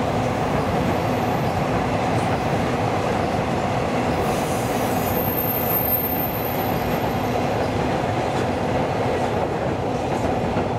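Empty cement tanker wagons of a freight train rolling across a girder bridge: a steady rumble and clatter of wheels on rail, with a thin high-pitched squeal from about five to seven and a half seconds in.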